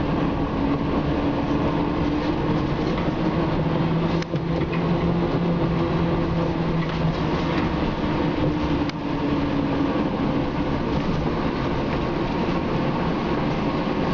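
Scania K93CRB bus heard from inside the passenger saloon while under way: a steady diesel engine drone over road noise. The engine note shifts slightly, with a lower tone coming in about four seconds in, and dips briefly about four and nine seconds in.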